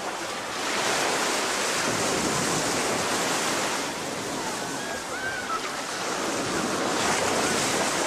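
Small sea waves breaking and washing up onto a sandy beach, a steady rush that swells louder twice as waves come in.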